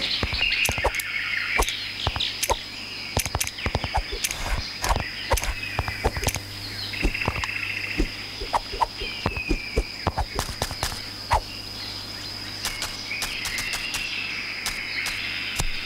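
Cartoon jungle sound effects: chirping and croaking animal-like calls mixed with many quick clicks and pops, over a steady high tone and a low hum.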